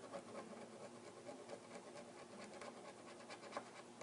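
Metal spudger scraping old adhesive off a phone's plastic frame: faint, irregular scratches and small ticks.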